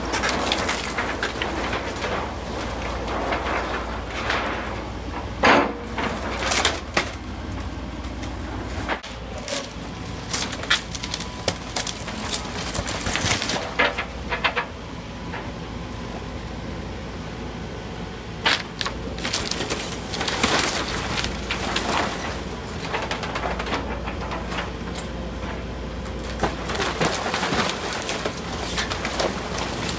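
Demolition of an old mobile home: irregular knocks, cracks and crashes of breaking and falling material, with a bird calling in the background.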